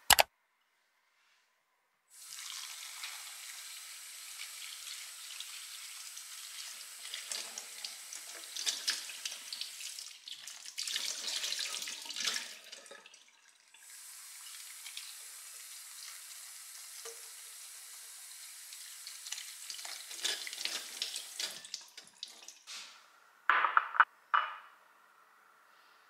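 Kitchen tap running into a bowl of strawberries in a steel sink, water splashing over the berries as they are rinsed; the flow breaks off briefly about halfway and then resumes. A sharp click at the very start, and two or three sharp knocks near the end.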